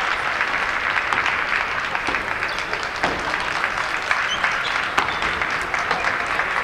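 Spectators applauding in a large sports hall: a steady patter of many hands clapping, with crowd voices faintly under it.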